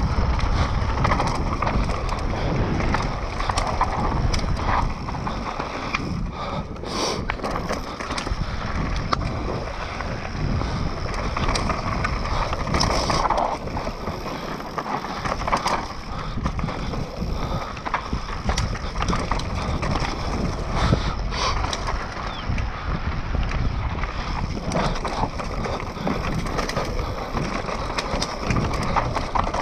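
Mountain bike running fast down a dry dirt trail. Tyre rumble and wind noise on the bike-mounted or helmet camera's microphone carry on throughout, with frequent clicks and knocks as the bike rattles over rocks and roots.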